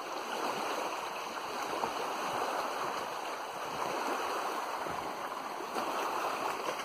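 Lake water lapping and splashing in a steady, even wash.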